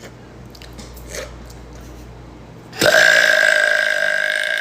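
A long, loud human burp that starts suddenly about three seconds in and holds a steady pitch.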